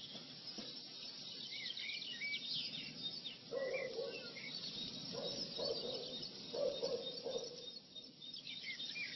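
Birdsong: small birds chirping and twittering in short, high calls, with a lower, steadier call repeated three times in the middle.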